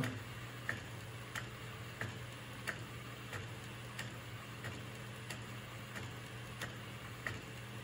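Epson P405 DTF printer running a print job: evenly spaced light clicks about every two-thirds of a second from its mechanism as it works pass by pass, over a steady low hum.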